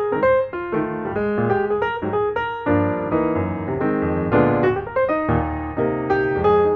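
Background piano music: a run of single notes, with fuller, deeper chords coming in about three seconds in.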